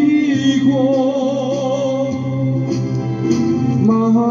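A singer with instrumental accompaniment sings a Korean folk ballad, holding one long note with vibrato on the end of a phrase. A new phrase begins near the end.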